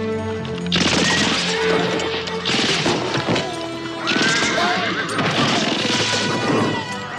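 Film soundtrack: a music score with sustained notes under action sound effects, with several loud crashing bursts, each about a second long.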